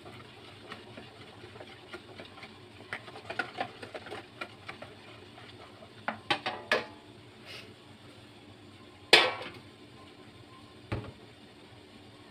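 Wire whisk stirring thin batter in a plastic bowl: a run of light clicks and taps, then a quick cluster of sharper taps. About nine seconds in comes one loud metallic clank with a brief ring, and a softer knock near the end.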